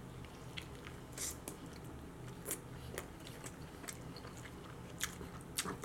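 A person chewing a mouthful of burrito, with faint wet mouth clicks and smacks scattered through it.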